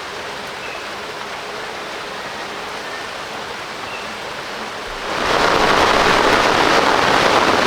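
Steady rush of running water, getting much louder about five seconds in.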